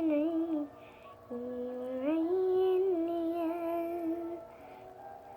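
A woman humming a slow tune without words: long held notes that slide in pitch, with a short break about a second in and another near the end.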